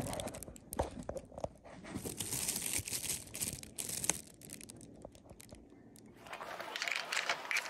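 Crinkling and rustling handling noise with scattered sharp clicks and knocks; it eases off past the middle and picks up again near the end.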